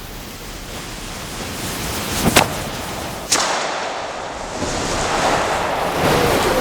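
Gunpowder ignited on a gunpowder drawing: a hissing rush of burning powder that builds up, with two sharp cracks about two and three seconds in.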